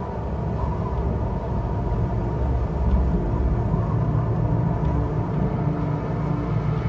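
Steady low rumble of an approaching storm, its wind sweeping across open grassland.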